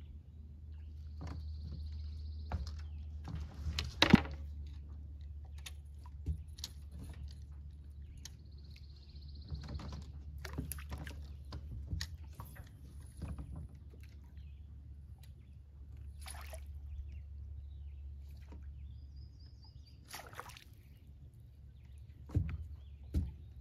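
Scattered knocks and handling clatter, as in a small boat, with water sloshing over a steady low rumble; the loudest is a sharp knock about four seconds in. A high buzzy trill sounds twice, each lasting about a second.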